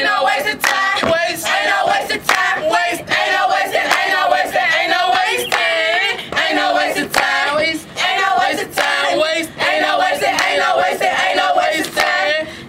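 A group of young voices singing and chanting together as a choir, punctuated by frequent sharp percussive hits.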